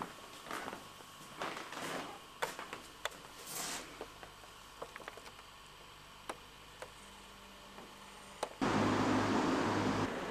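Scattered light clicks and rustles in a small room, then about eight and a half seconds in a sudden switch to a loud, steady outdoor rush with a low hum.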